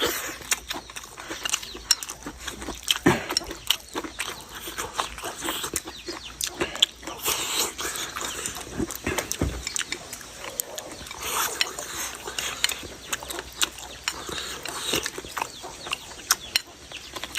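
A person eating close to the microphone: wet chewing and lip-smacking, with scattered sharp clicks.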